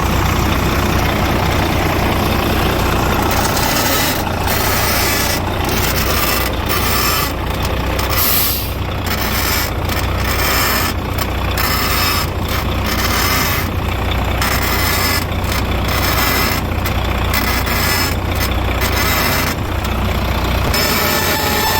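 Heavy truck's engine idling, with a dense hiss over it; from about four seconds in, the high part of the hiss breaks off and returns over and over at irregular intervals.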